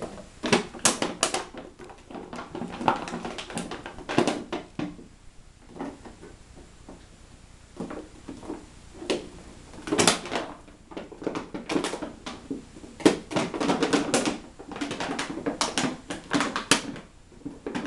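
Plastic bottle crinkling and clattering as a poodle bites, shakes and tears at it and its label, in irregular spells of sharp crackles with a short lull in the middle.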